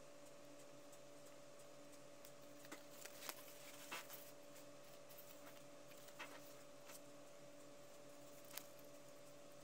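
Near silence: a steady faint hum, with a handful of faint rustles and taps of paper card being handled, most of them about three to four seconds in and one near the end.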